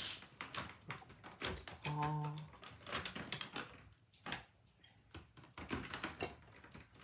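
Irregular light clicks and taps, several a second, of small hard things being handled or keys being pressed, with a short hummed tone about two seconds in.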